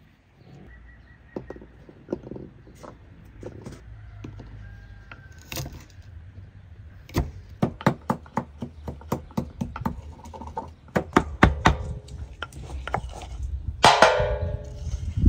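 Wooden pestle pounding garlic in a wooden mortar: a run of sharp knocks, about three or four a second. Near the end comes a louder, ringing clatter as the crushed garlic is knocked and scraped off the pestle onto a metal tray.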